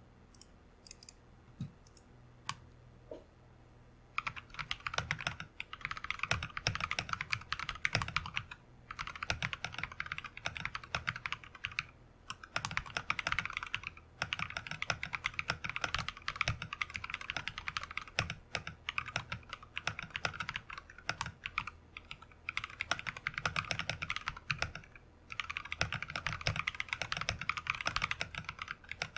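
Typing on a Royal Kludge RK100 mechanical keyboard with lubed and filmed Glorious Panda tactile switches, clipped and lubed stabilizers, case foam and a tape mod. A few single key presses, then fast continuous typing from about four seconds in, in runs of a few seconds broken by brief pauses.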